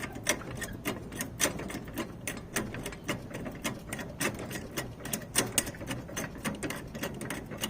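A jack being pumped to lift a riding mower: a quick, uneven run of sharp metallic clicks, several a second.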